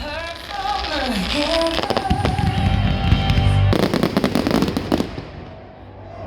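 Fireworks going off over music playing, with low bangs and a dense burst of crackling about four seconds in.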